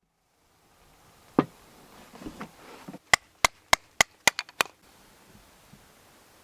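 Chopping: one heavy knock, a few softer knocks, then a quick run of seven sharp strikes about three a second.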